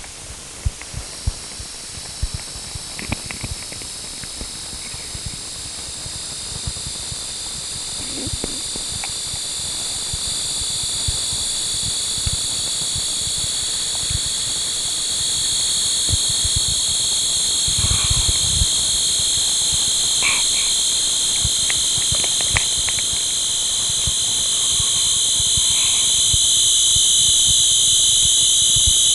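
Experimental noise music: piercing high electronic tones, several at once, that enter about a second in, drift slowly downward in pitch and swell steadily louder, over scattered low crackles and clicks.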